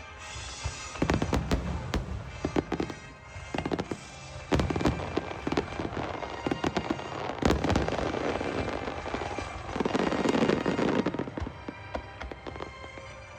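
Aerial fireworks shells bursting in quick succession: many sharp bangs, with a dense stretch of crackling about two thirds of the way through.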